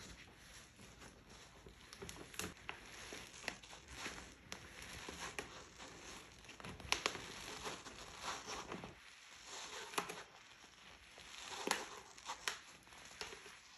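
Thin plastic sheet crinkling and rustling in irregular handling noises as a wool art batt is rolled up in it off the drum of a drum carder, with a few louder sharp crackles scattered through.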